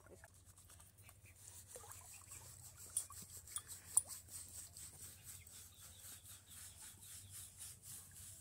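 Hands rubbing shampoo into a wet Labrador's coat: a faint, steady scrubbing of wet fur, with two sharp clicks about three and four seconds in.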